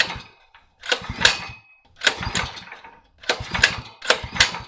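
Predator 212cc single-cylinder engine being pull-started: five quick yanks of the recoil starter, about one a second, each one cranking the engine over through a few compression strokes without it catching.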